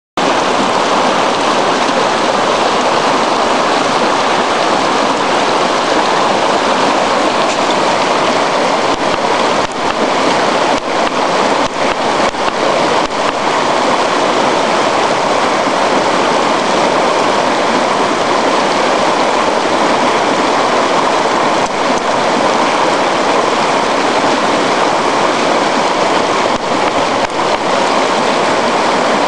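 Steady, loud rush of shallow river water flowing close to the microphone, with a plastic gold pan being dipped and washed in the current and a few faint knocks partway through.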